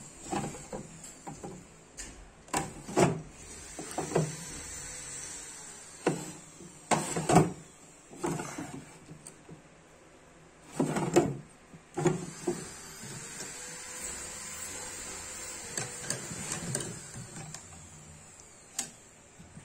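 Small wooden drawers of an antique-style chest being slid open and pushed shut by hand: a string of short wood-on-wood scrapes and knocks, with a sharp click near the end.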